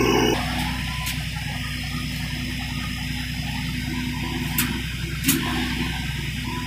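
Steady machinery hum from the running stone-crusher plant, heard inside the control room, with two sharp clicks about four and a half and five seconds in. A louder machine noise cuts off abruptly at the very start.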